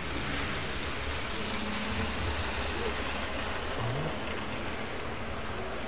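HO-scale model trains running on the layout track, a steady rumbling whir of wheels and small motors.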